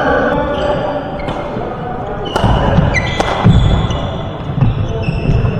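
Badminton doubles rally on an indoor court: several sharp racket strikes on the shuttlecock, heavy footfalls of players moving and lunging, and short high squeaks of shoes on the court floor.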